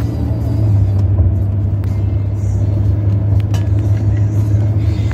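Steady low rumble of a moving vehicle heard from inside the cabin: engine and tyre noise at cruising speed.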